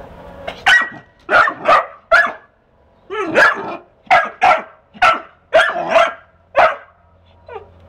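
Pit bull-type dog (an American Staffordshire terrier) barking at a hen, about eleven short, sharp barks in an uneven run lasting some six seconds.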